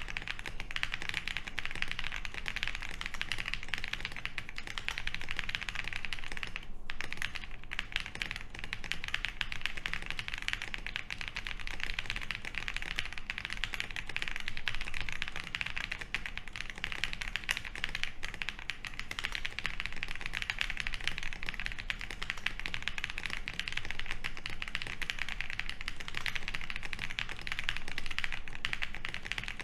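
Continuous fast typing on a gasket-mounted OwLabs Jelly Epoch mechanical keyboard with lubed Boba U4T tactile switches (68 g), a polycarbonate plate and PBT keycaps: a dense, even run of keystrokes, broken by a short pause about seven seconds in.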